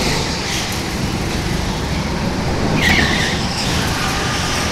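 Go-kart engines running on the track, a steady mechanical drone, with a brief high tyre squeal about three seconds in.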